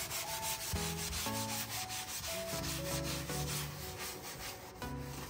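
A wet scrub sponge scouring a stainless steel sink coated in powdered cleanser, in a rapid run of rasping back-and-forth strokes.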